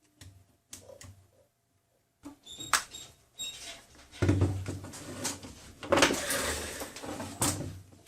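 Handling noise from the plastic housing and parts of a Dremel 3000 rotary tool being taken apart: a few scattered clicks and knocks, then about four seconds of steady scraping and rustling from about four seconds in.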